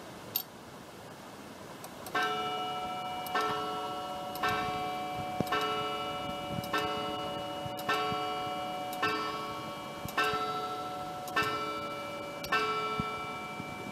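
Coiled blued-steel wire gong of a circa-1910 Duverdrey & Bloquel crystal regulator mantel clock striking ten for the hour, about one stroke a second, each stroke ringing on into the next. A single click comes shortly before the first stroke.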